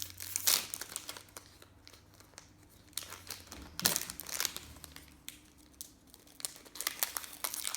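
Trading-card pack wrapper crinkling and rustling as cards are handled and a pack is opened, in irregular sharp crackles, the loudest about half a second in and near the middle, over a faint low hum.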